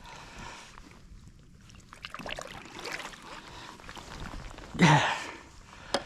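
Water trickling and sloshing around a kayak, with small knocks and splashes as a freshly landed kingfish is handled on board, and one brief louder splash-like burst about five seconds in.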